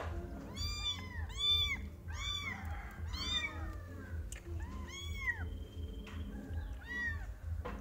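Young kitten mewing repeatedly during bottle-feeding: short, high calls that rise and fall in pitch, several close together in the first few seconds, then fewer.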